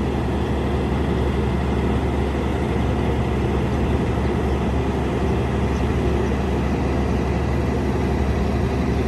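Heavy diesel engine of a construction machine running steadily at a constant speed, a low, even drone with no change in pitch.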